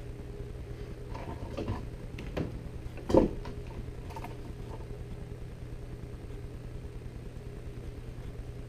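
Kangaroo-leather lace strands being handled, with faint rustles and a single sharp knock about three seconds in, over a steady low hum.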